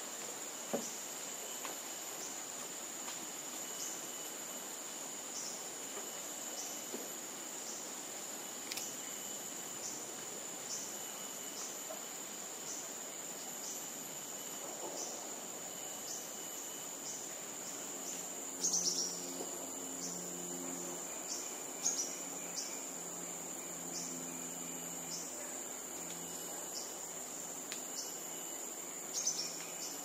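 Insects shrilling steadily at a high pitch, with a short chirp repeating roughly once a second. A low hum joins about two-thirds of the way through, and a few brief louder clicks stand out.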